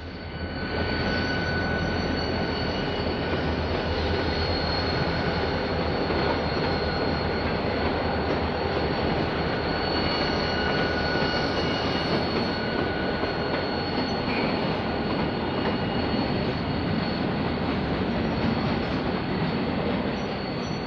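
Freight train rolling past on the rails: a steady rumble of wheels on track, with thin, high wheel-squeal tones held over it.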